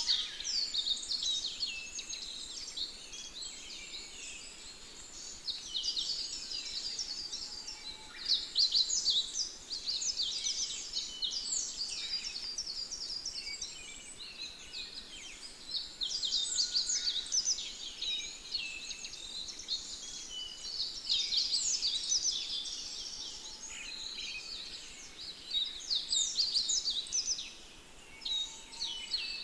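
Dense chorus of many small birds chirping and twittering. It is high-pitched and overlapping, swelling and fading every few seconds without a break.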